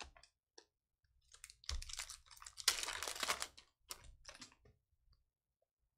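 Foil wrapper of a trading-card pack crinkling and tearing as it is ripped open: a few light clicks near the start, then a dense run of sharp crackles for about three seconds, loudest in the middle.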